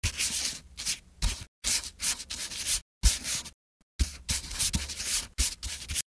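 Writing sound effect: a run of scratchy strokes on paper with short gaps between them, and a pause of about half a second a little past the middle.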